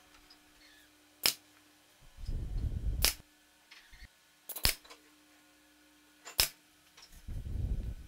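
Nail gun firing brads into thin pine trim: five sharp shots about a second and a half apart, two of them in quick succession a little past the middle. Two short low rumbles between the shots, about two seconds in and near the end.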